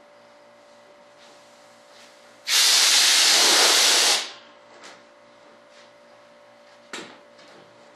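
Compressed-air blow gun hissing in one steady burst of about a second and a half, blowing drilling dust out of a fibreglass wing mold. A single short knock follows near the end.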